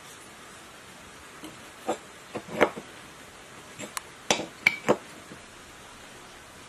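A small hammer tapping a metal sewage-pump part on the bench: a string of about nine sharp metallic knocks, irregularly spaced, from about two to five seconds in.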